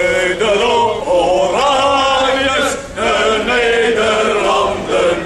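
A crowd of marching men chanting in unison, in drawn-out sung phrases with short breaks between them.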